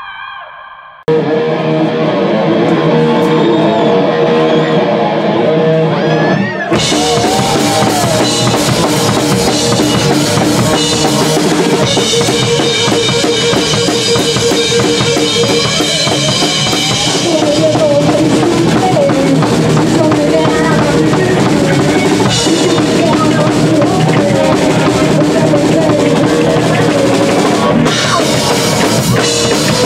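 Live punk rock band playing loud, with electric guitar, bass and drum kit. The music starts suddenly about a second in and gets fuller and brighter at about seven seconds.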